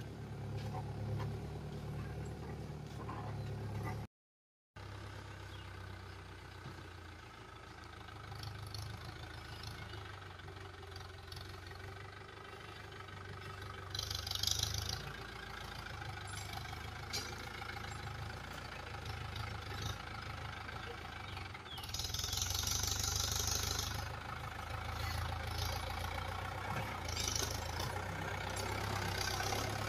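Mahindra Yuvo tractor's diesel engine running steadily as it pulls a loaded trailer of soil. The sound cuts out for a moment about four seconds in, and a hiss rises over the engine twice, briefly about halfway and for about two seconds later on.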